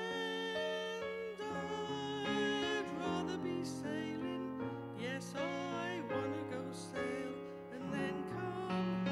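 A woman singing a musical-theatre song into a microphone, holding notes with vibrato, over piano accompaniment.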